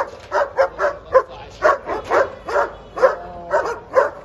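A dog barking repeatedly in short, sharp barks, about two a second, with a brief whine about three seconds in.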